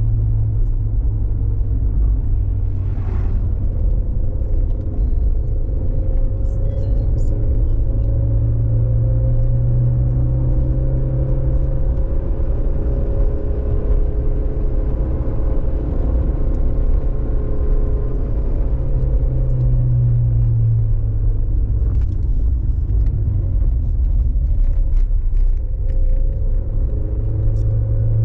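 A motor vehicle driving, with a steady low engine rumble. The engine note rises slowly and then falls back over several seconds.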